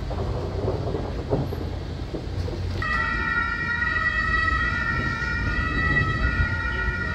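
Siren held at one steady high pitch, starting about three seconds in, over a low street rumble.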